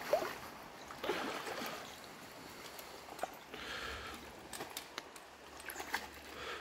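Water of a small, shallow stream running, with two brief louder rushes of noise, about one second in and near four seconds in, and a few faint clicks.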